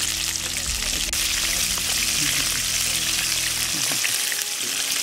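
Coated chicken pieces deep-frying in a kadai of hot oil: a steady sizzle of bubbling oil with small scattered pops.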